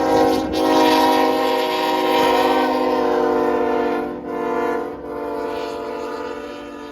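Air horn of a CSX freight locomotive sounding long blasts, several tones held together as a chord, with short breaks about half a second in and again around four and five seconds. It fades in the last two seconds or so.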